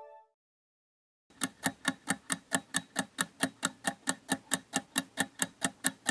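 Countdown-timer tick sound effect, sharp clock-like ticks at about four a second, starting about a second and a half in. A chime fades out at the very start.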